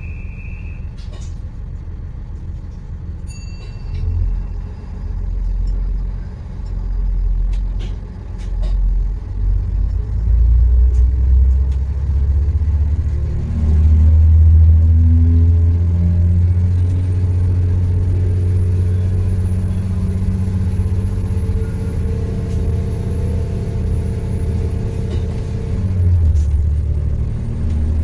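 Diesel engine of an Alstom LINT railcar, heard from inside the passenger compartment as the train gathers speed. A low rumble swells in pulses at first, then settles into a heavier, steady drone with slowly rising tones, and a faint high whine joins it in the second half. Near the end the engine note dips briefly and then picks up louder.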